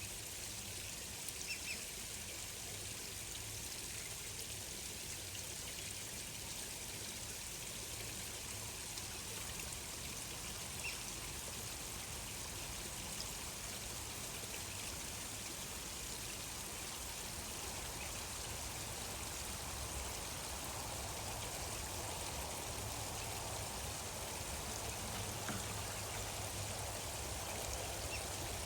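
Gently flowing stream water trickling steadily, with a few faint, brief bird chirps.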